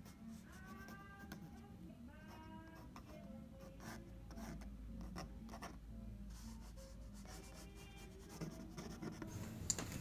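Feather quill pen scratching across watercolor paper in short strokes as ink lines are drawn.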